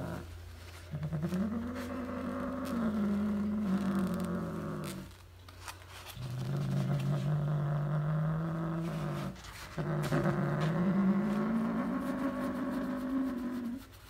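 Tabby cat growling three long, drawn-out times, the first and last rising in pitch, while it holds a roll of toilet paper in its teeth: a warning growl as a hand touches the paper it is guarding.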